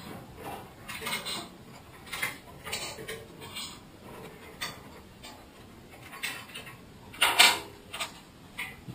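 Intermittent metallic clicks and clinks from hand work on steel lift parts, typical of bolts and tools being handled while bolting a car-lift ramp to its cross bar. The loudest is a sharper clank about seven and a half seconds in.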